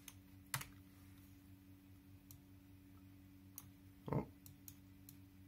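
Faint, scattered clicks of a computer mouse and keyboard, about eight single clicks spaced irregularly, over a low steady hum.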